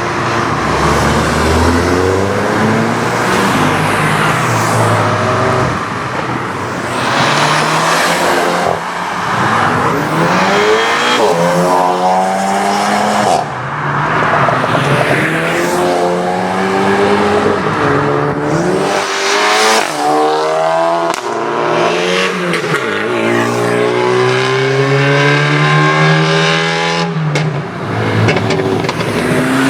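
Modified Volkswagen Golf R and GTI hatchbacks with aftermarket exhausts accelerating hard away one after another, each engine note rising through the gears with short breaks at the shifts. A few sharp cracks from the exhausts come between the pulls.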